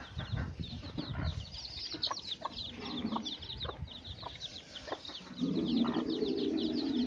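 Chicks and ducklings peeping continuously in a crate, a rapid stream of thin, high, downward-sliding cheeps. About five seconds in, a louder low steady drone sets in and holds under the peeping.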